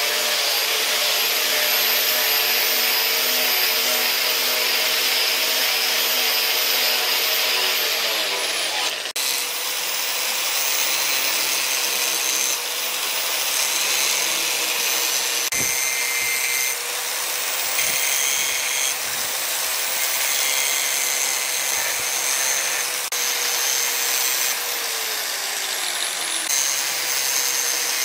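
Angle grinder running with its disc pressed against a round knife handle, cutting grooves into it: a steady high whine over a grinding hiss. The whine drops in pitch twice as the grinder slows.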